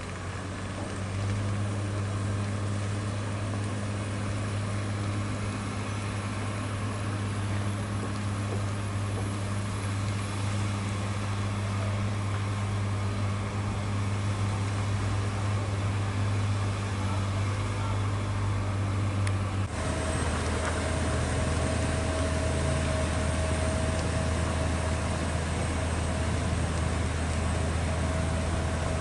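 Heavy truck's diesel engine pulling uphill under load, a steady low drone. About twenty seconds in the sound cuts abruptly, and a steady higher whine joins the drone.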